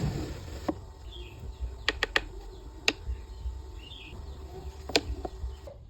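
Hand tools and wooden pieces being handled on a workbench: scattered sharp taps and clicks, including a quick run of three about two seconds in, over a low background rumble.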